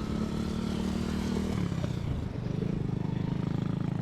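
An engine running steadily. Its sound breaks up about two seconds in, then carries on as a rapid, even pulse.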